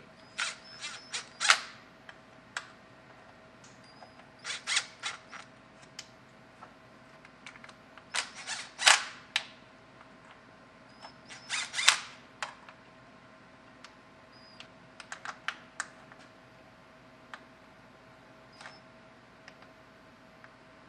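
Cordless power tool run in short bursts of rapid clicking as the transmission pan bolts are snugged up one after another, with scattered single clicks between the bursts. A faint steady hum runs underneath.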